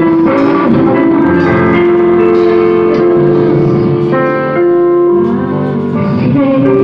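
Live praise-and-worship music: women singing through microphones and a PA with acoustic guitar accompaniment, long notes held and changing every second or so.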